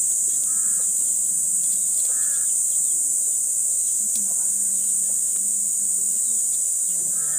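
Insects droning steadily at a high pitch, with short bird calls breaking in three times, twice in the first few seconds and once near the end.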